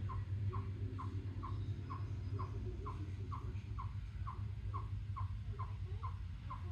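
A chipmunk calling off-camera, repeating a short chirp that drops slightly in pitch, just over twice a second and very evenly, over a steady low rumble. The steady repetition is typical of a chipmunk's alarm call.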